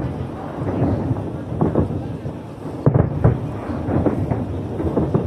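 Aerial fireworks display: a run of booming bursts about a second apart over a continuous low rumble, the loudest bangs about three seconds in.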